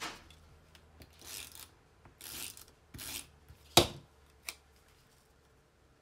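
Cardstock being handled and slid on a plastic craft mat: a few short rustling scrapes, then a sharp tap just before four seconds in, the loudest sound, and a smaller click about half a second later.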